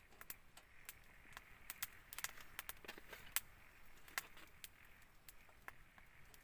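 Campfire crackling faintly, with irregular sharp pops and snaps.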